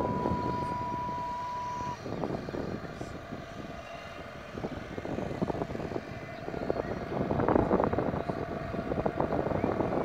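A model steam boat's medium-size steam whistle sounds one steady high tone that cuts off about two seconds in. A rough, uneven running noise follows, and a lower steady whistle tone comes in faintly near the end.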